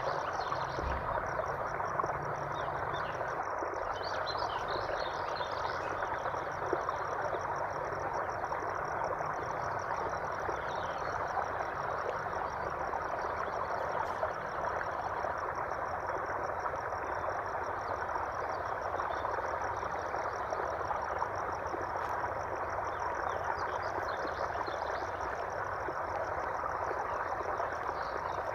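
Steady rush of flowing water, with a continuous high, rapidly pulsing trill from calling frogs or insects above it and scattered short chirps.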